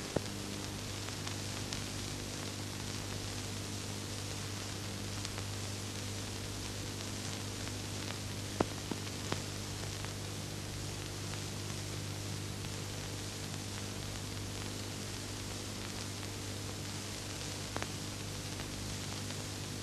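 Steady hiss and low hum of an old film's soundtrack, with a few sharp crackle clicks, the loudest a little before the middle.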